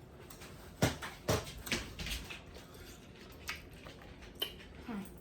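Handling noise at a meal table: a series of short, sharp clicks and knocks, the loudest about a second in, then several fainter ones spread over the next few seconds.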